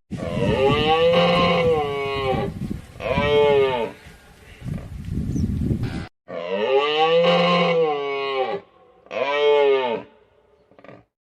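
Cattle mooing: a long call that rises and falls in pitch, then a shorter one, and after a sudden cut about six seconds in the same pair of calls again.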